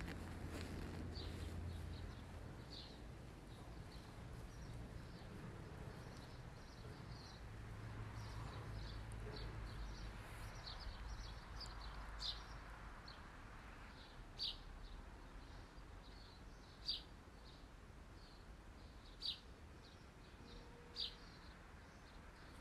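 Faint outdoor ambience of birds chirping: short, high chirps that come more strongly about every two seconds in the second half, over a low steady rumble.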